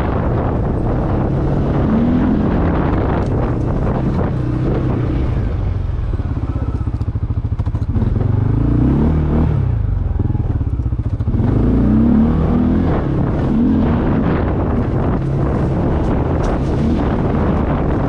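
ATV engine running under way, its pitch rising and falling as the throttle changes, with wind buffeting the microphone.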